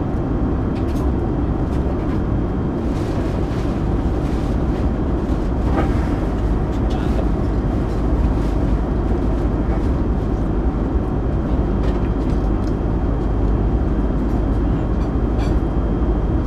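Steady low cabin noise of an airliner in flight, engine and airflow noise filling the cabin without change, with a few faint clicks over it.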